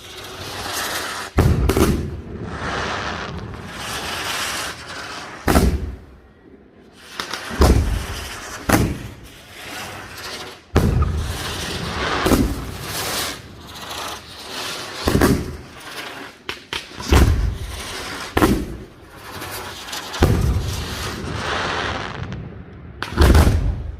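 Aerial fireworks display: shells burst in loud booms every one to four seconds, about ten in all, with a steady hiss and crackle of effects between the bursts.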